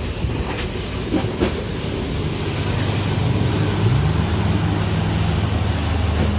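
Three Yamaha 250 hp outboard motors running as a wooden speedboat gets under way, with water churning in the wake. About four seconds in the engines take on a steady tone that rises in pitch as they come up on throttle, with a few short knocks in the first second and a half.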